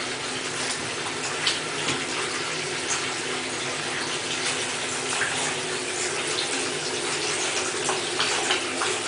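Water running steadily from a bath tap into a bathtub, with a few light splashes.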